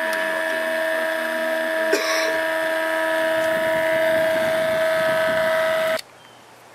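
A motor whines steadily at one high pitch, like a power tool, then cuts off suddenly about six seconds in. A single sharp click comes about two seconds in.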